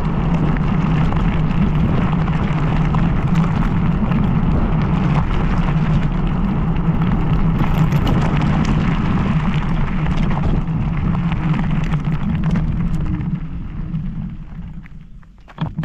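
Wind rushing and buffeting over the microphone of a rider moving on an electric scooter, a loud low rumble that dies down near the end, followed by a brief knock.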